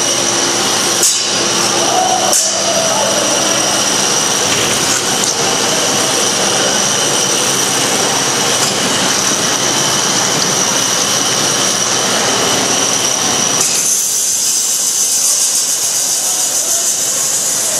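Combat robots' motors making a steady loud mechanical whine and rushing noise, with a couple of knocks about one and two and a half seconds in. Near the end the lower part of the noise cuts out suddenly, leaving a high hiss.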